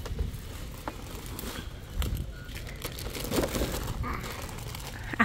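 Warehouse-store background: a steady low rumble with faint, indistinct voices and a few light clicks.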